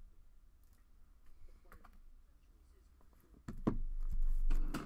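Trading-card pack being handled at the table: scattered small clicks and rustles, then, about three and a half seconds in, a louder second or so of rustling and knocking as the pack is brought up close.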